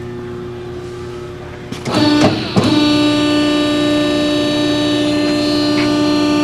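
Vertical baler's electric motor and hydraulic pump running with a steady hum. About two seconds in, a few clunks and a brief dip in pitch, then the pump whine settles louder and steady as it comes under load.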